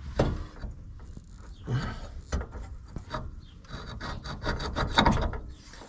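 Irregular clunks, knocks and scraping of metal parts as a car's lower front control arm is worked loose and pulled out of the suspension.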